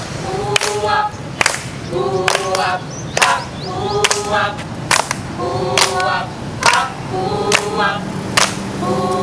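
A group of young voices singing "hoo wap, hoo wap" in unison as a rhythmic vocal beat, with a sharp hand clap between each sung phrase, a little more than one clap a second, keeping an even pulse.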